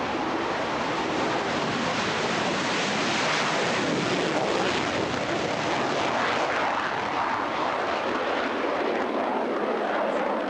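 Panavia Tornado's twin RB199 turbofans in afterburner through a take-off roll and climb-out: continuous jet noise, loudest midway and easing a little near the end as the jet climbs away.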